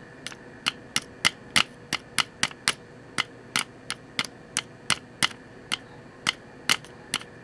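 Repeated light taps on a pocket transistor radio's circuit board, about three a second, over a faint steady tone. They are a search for an intermittent, flaky connection near the oscillator coil.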